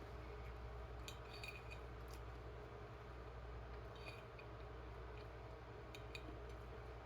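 Faint light clinks and taps of cutlery against a plate, a few scattered strikes over a low steady hum.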